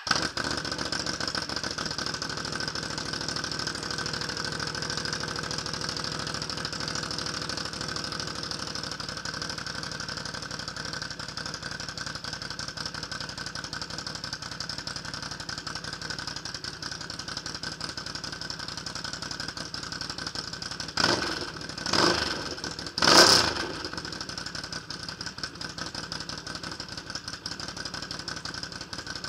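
Can-Am Renegade 800R ATV's V-twin engine starting and then idling steadily through an aftermarket exhaust. Three short throttle blips come about three quarters of the way through, the last the loudest.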